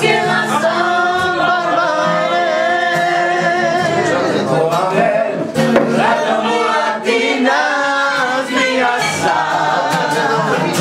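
A group of people singing together to a strummed acoustic guitar, with hand claps keeping time.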